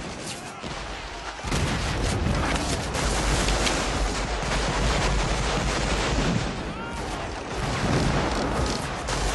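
Battle gunfire: rapid musket shots and volleys mixed with cannon booms, thick and continuous, growing louder about a second and a half in.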